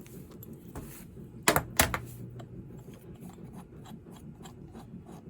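Two sharp clacks of small metal carburetor parts being handled, then a ratchet wrench clicking steadily at about four clicks a second as a fastener on the snowblower carburetor is worked loose.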